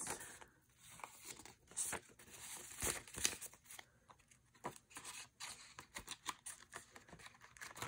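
Faint rustling and crinkling of paper bills being handled and slipped into a clear plastic pocket of a ring-binder cash envelope, with scattered light clicks and taps.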